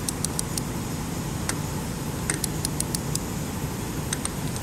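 Torque wrench ratcheting and clicking as the injector hold-down bolts are tightened to the first torque stage of 44 ft-lb: about a dozen light, sharp clicks, some in quick pairs, over a steady background noise.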